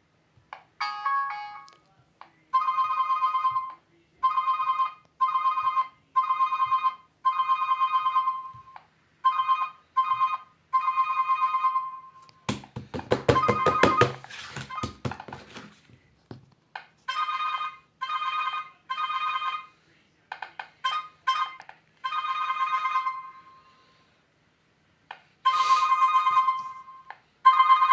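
An alarm ringtone: a bright electronic tone beeping in bursts of roughly half a second to a second, with uneven gaps. About halfway through, a loud harsh rattling burst of rapid clicks lasts around three seconds, and then the beeping starts again.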